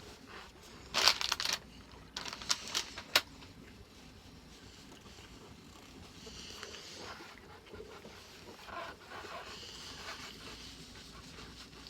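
Crunching bites into a milk chocolate wafer heart: two quick clusters of sharp crackles in the first few seconds, then quieter chewing.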